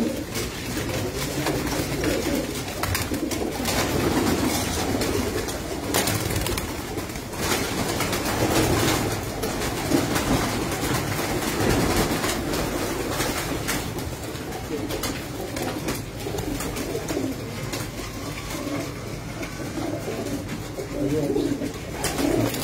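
A flock of domestic pigeons in a loft cooing in a steady, overlapping chorus, with a few short sharp clicks now and then.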